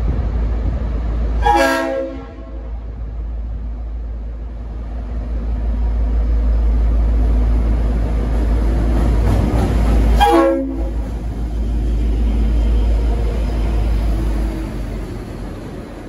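Leslie RS5T multi-chime air horn on V/Line N class diesel locomotive N455 sounding two short blasts, about eight and a half seconds apart, over the steady low rumble of the locomotive's diesel engine, which grows louder as it pulls out and passes.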